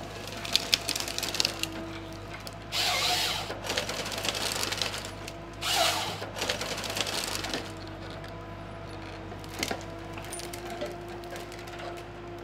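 Malwa 560H harvester running steadily while its Log Max 928 head processes a thin stem: a short run of crackling as branches are stripped, then two short loud bursts about three seconds apart as the saw cross-cuts the stem into lengths.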